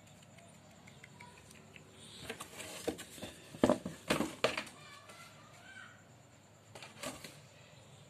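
Cats scuffling at play on a tiled floor: a run of sharp knocks and scrapes about two to four and a half seconds in, and a couple more near seven seconds.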